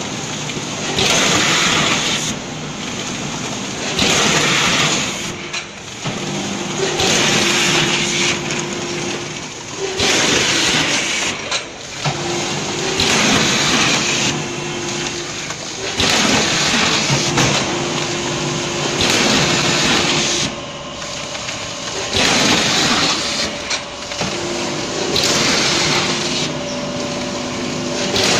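A vertical form-fill-seal snack packing machine running through its bagging cycle: a rushing hiss comes about every three seconds over a steady machine hum, once per bag formed, filled and sealed.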